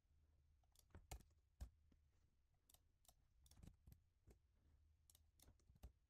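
Near silence with faint, irregular clicks of a computer keyboard and mouse, a few a second.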